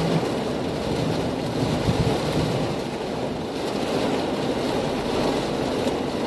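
Steady rushing of thunderstorm wind on the microphone, an even noise without breaks.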